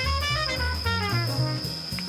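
Background music: an upbeat jazzy tune with a melody line over a stepping bass line and a steady beat.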